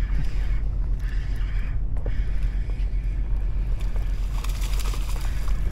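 Steady low rumble of wind buffeting the microphone on a boat at sea, with a few faint ticks near the end.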